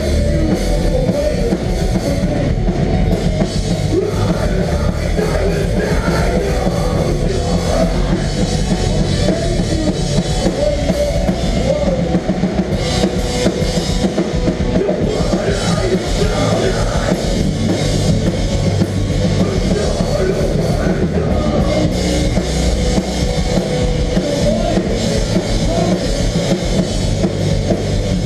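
Melodic hardcore band playing live: pounding drum kit with bass drum under dense distorted guitars and bass, loud and unbroken.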